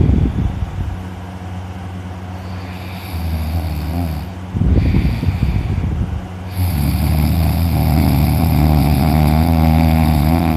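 A person snoring loudly in deep, exhausted sleep: a sudden loud snort at the start, then a few rough snores, the last one drawn out for about five seconds.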